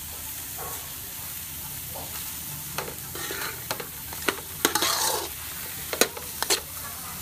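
Fried rice with diced vegetables sizzling in a stainless steel wok. From about three seconds in, a metal spatula scrapes and clacks against the wok as the rice is stirred and tossed.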